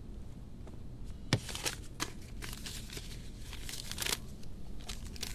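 Paper rustling and crinkling as a letter is picked up from a table and handled, in short irregular bursts, after a single sharp tap about a second in.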